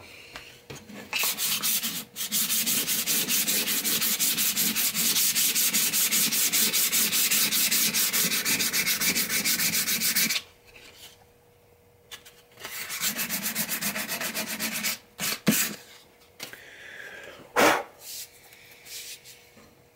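150-grit sandpaper rubbed by hand along a hickory hammer handle in quick, even back-and-forth strokes, stripping the factory acrylic or polyurethane finish, which clogs the paper. The sanding stops for about two seconds and then resumes briefly. A few sharp knocks follow near the end.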